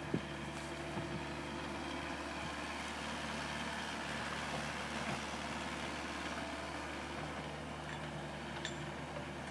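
Small excavator's engine running steadily at a constant speed. There is a single sharp click just after the start.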